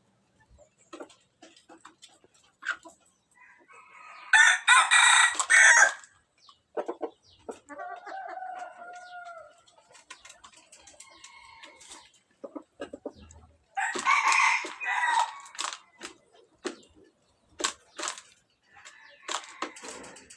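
Rooster crowing twice, about four seconds in and again around fourteen seconds, each crow lasting about a second and a half, with quieter clucking calls in between and a further burst of calls near the end.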